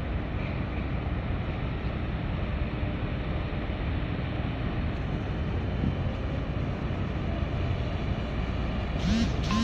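Steady wind noise on the microphone over a low rumble from a large container ship passing through the harbour entrance. Near the end, music with rising tones comes in.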